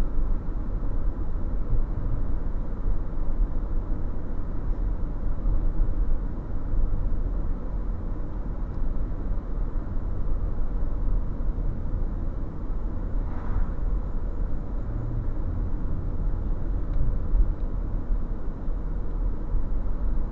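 Steady low rumble of a car's engine and tyres heard from inside the cabin while driving slowly along a street, picked up by a dashcam microphone.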